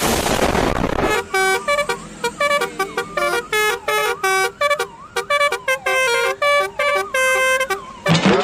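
Telolet bus horn of the Basuri kind, a multi-tone air horn playing a quick melody of short notes that change pitch. About a second of rushing noise comes before the first note.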